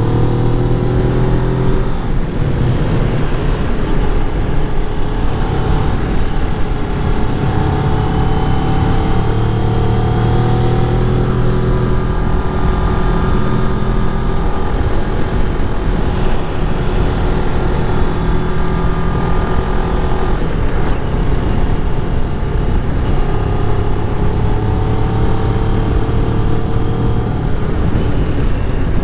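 Kawasaki Ninja 400's parallel-twin engine under way on a climbing road, its note rising and falling with the throttle and changing pitch several times, over steady wind rush on the microphone.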